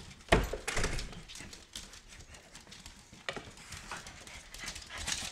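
Several small dogs' claws clicking and tapping on a wooden floor as they mill about, with a louder thump about a third of a second in.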